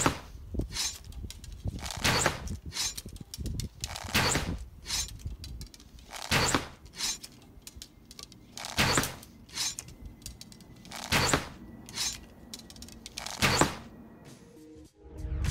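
Recurve bow being shot in rapid succession: about seven sharp string-release shots a little over two seconds apart, with lighter clicks and rustles between them as arrows are pulled from a back quiver and nocked.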